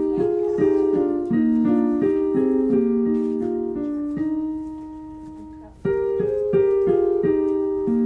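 Piano playing a simple melody over chords; one phrase dies away about five seconds in, and a new phrase starts near six seconds.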